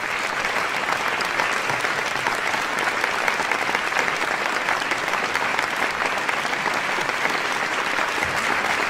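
A large audience applauding steadily, swelling over the first second into a sustained ovation, just after a state of war is declared.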